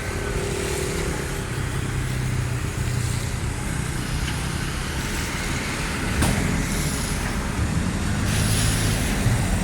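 Heavy truck engine running steadily amid road traffic noise, with a sharp click about six seconds in and a short hiss near the end.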